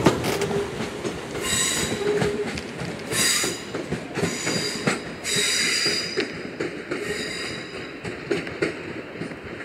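Class 350 Desiro electric multiple unit moving away over curved pointwork, its wheels squealing in about four short high-pitched bursts, with clicks of wheels over rail joints and crossings. It grows fainter as it goes.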